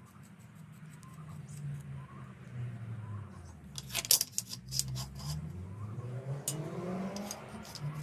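Hand-forged iron slide-lock bolt clicking and scraping against its forged keepers and base plate as it is handled and slid, with a cluster of sharp metal clicks about halfway through and a drawn-out scrape near the end, over a low steady hum.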